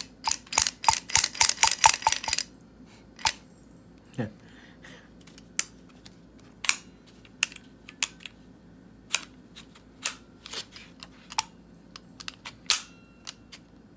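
Small sharp metal clicks and taps from an AEA HP semi-auto carbine air rifle being handled and taken apart: a fast run of clicks for about two and a half seconds, then single clicks every second or so as a threaded part is unscrewed from the receiver.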